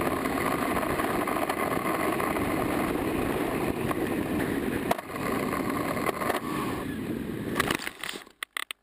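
Steady wind rush and motor-and-propeller noise recorded from a model plane's onboard camera in low, fast flight, with a hum in it fading out about seven seconds in. About eight seconds in there are a few sharp knocks as the plane hits the ground, then the sound cuts off abruptly, leaving only a few short clicks.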